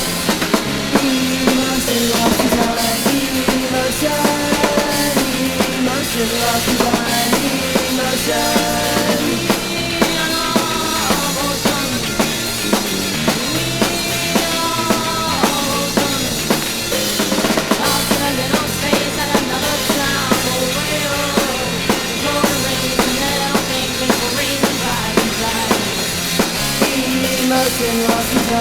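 Garage rock band playing from a 1994 7-inch vinyl record: a drum kit keeps a steady beat under bass and other pitched instruments.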